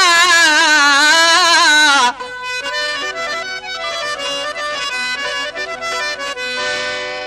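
Traditional Sindhi folk music. A long wavering held note ends about two seconds in. It gives way to a quieter instrumental passage of a reed instrument playing steady notes over a rhythmic strummed or drummed beat.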